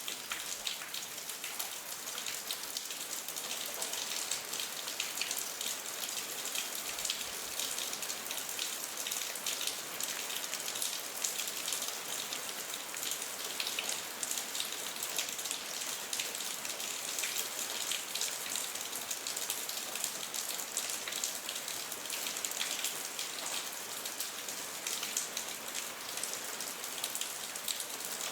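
Steady rain falling: a dense patter of drops over an even, mostly high-pitched hiss, unchanging throughout.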